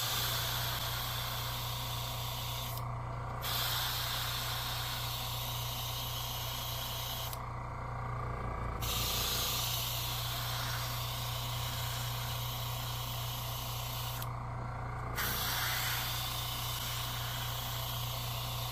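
Airbrush spraying paint in a steady hiss that stops briefly three times as the air is cut, over a steady low hum.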